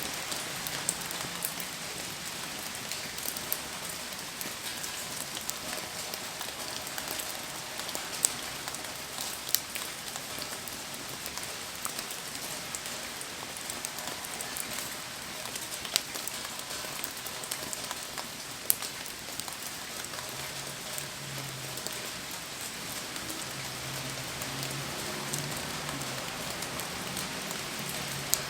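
Steady rain falling around a bonfire, an even hiss broken by scattered sharp pops and drips.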